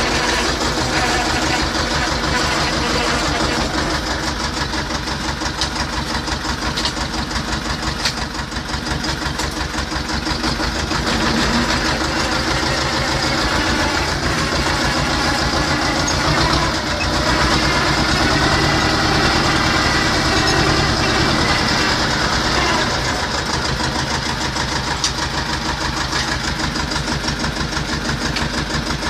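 T-25 tractor's air-cooled two-cylinder diesel engine running steadily with a fast, even knock of its firing, a little louder for about five seconds past the middle.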